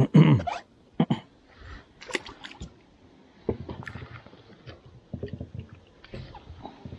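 A freshly caught fish thrashing in wet hands as it is unhooked, with irregular wet slaps and water splashing and dripping. The loudest slaps come in the first second or so.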